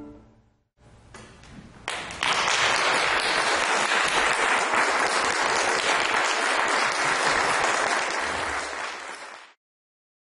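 The last chord of a chamber ensemble dies away, then after a brief hush an audience applauds. The clapping swells about two seconds in, holds steady, then tails off and cuts off abruptly near the end.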